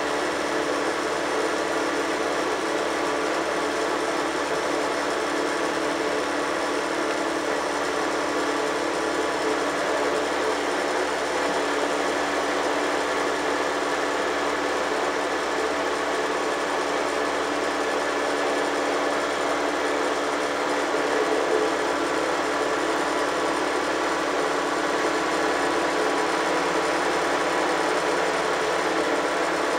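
Tractor engine running steadily under way at road speed, heard close behind its upright exhaust stack.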